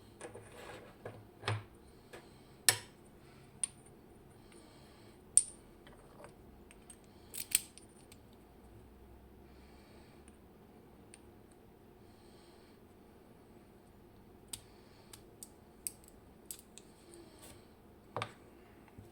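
Small metal lock parts and tools clicking and clinking as a Robur safe deposit lock is taken apart by hand: irregular sharp clicks, a few louder taps in the first half, a quiet stretch in the middle, then more light clicks.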